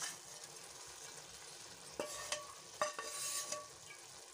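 A wooden spoon scrapes fried mutton out of a pan onto rice in a metal pot. Three metal knocks come in the second half, each ringing briefly, over a low steady hiss.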